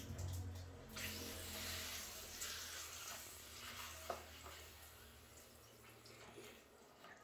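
Faint trickle of running water, strongest in the first few seconds and then fading, with one light metallic click about four seconds in.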